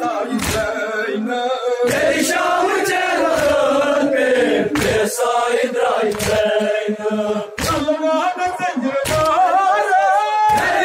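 A crowd of men chanting a noha, a Shia mourning lament, together, cut by a sharp slap about every second and a half, the beat of hands striking chests in matam.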